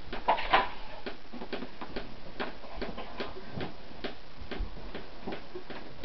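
Steady ticking: a run of short, sharp clicks several times a second.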